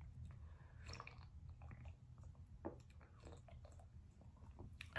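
Faint sipping and swallowing from a drink can: scattered small wet mouth and throat clicks over quiet room tone.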